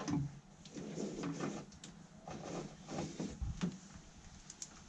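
Scraping and rubbing handling noises in several short bursts, from hands working on boat wiring.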